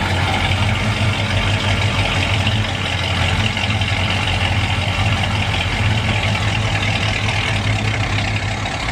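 Classic car engines running steadily at low speed as old cars drive slowly past at walking pace, led by a 1950s Chrysler 300; a low, even engine hum with no revving.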